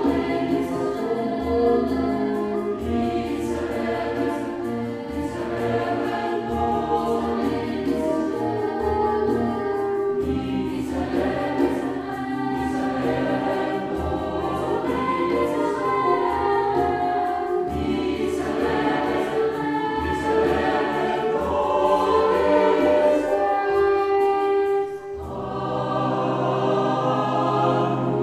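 Mixed choir singing a mass setting in sustained chords over low, regularly pulsed accompaniment notes from a chamber ensemble. The sound dips briefly about 25 seconds in, and a new phrase begins over held low notes.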